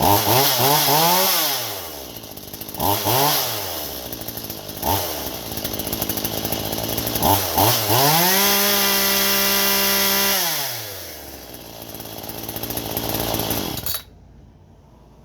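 Homelite two-stroke chainsaw engine blipped up and down in revs a few times, then held at high revs for about three seconds before dropping back to idle. The engine cuts out suddenly near the end.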